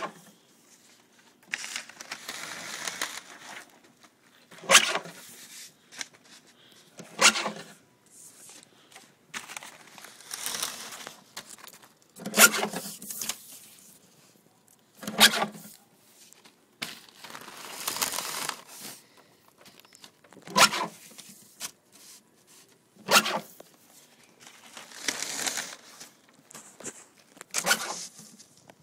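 Mesh fabric and sheets being handled at a hand-fed roller machine, in a repeating cycle: a long rustling pull lasting a second or two, then two short sharp snaps a couple of seconds apart, four times over.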